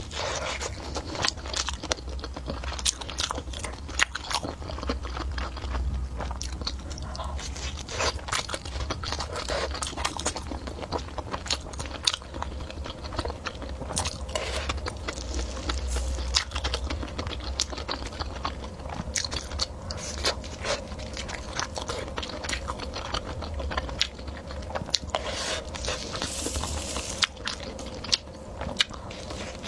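Close-miked eating: a person chewing and biting food, with many quick, irregular clicks.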